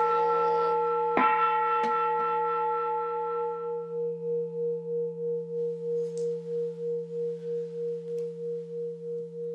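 Large Buddhist temple bowl (a Japanese rin) ringing after a strike with a padded striker, struck again about a second in. Its higher tones die away within a few seconds, and a low hum rings on, slowly fading and pulsing about three times a second.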